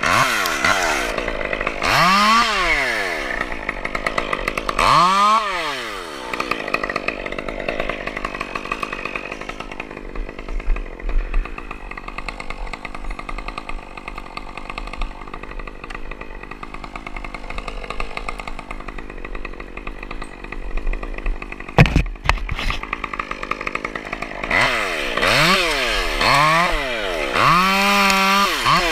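Gas two-stroke chainsaw revved up and let fall back several times, each rev climbing and dropping in pitch, running lower in between. A single sharp knock about two-thirds of the way through.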